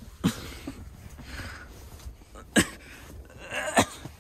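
Rustling of clothing and bedding, with three sharp knocks as a handheld camera is moved and bumped around.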